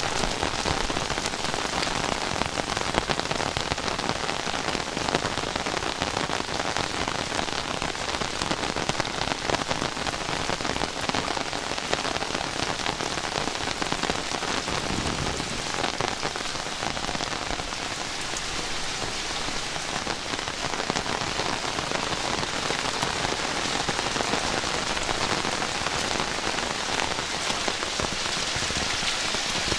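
Heavy rain pouring steadily: a dense patter of drops hitting surfaces.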